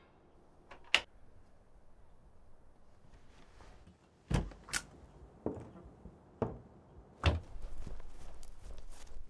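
A wooden door's latch clicks sharply about a second in. From about four seconds in come about five heavy thuds, roughly a second apart, as the door opens and someone walks out. A steady outdoor background hiss comes in near the end.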